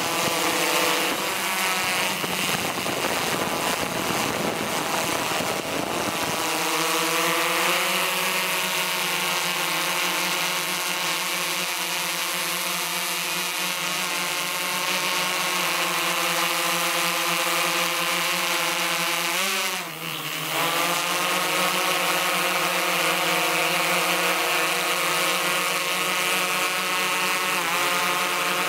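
Quadcopter drone's rotors humming steadily, the pitch dipping briefly and recovering about twenty seconds in. A rougher rushing noise lies under the hum for the first six seconds or so.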